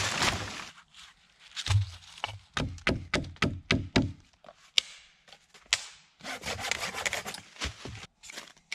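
Wood being sawn by hand: a quick run of short saw strokes in the middle, among other rubbing and scraping of wood.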